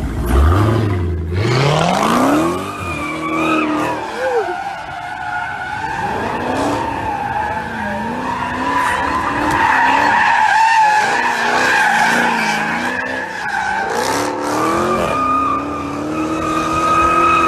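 A Dodge Challenger SRT Hellcat's engine revs up hard in the first couple of seconds. Then tyres squeal for a long stretch, with a wavering pitch that rises and falls.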